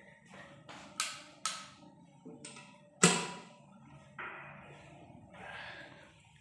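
A few sharp knocks: two close together a second in, then a louder one about three seconds in, with softer rustling between.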